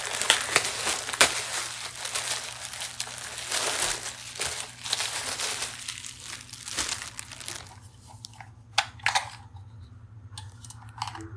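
Packaging crinkling and rustling as it is handled for the first six or seven seconds, then a few sharp clicks and taps.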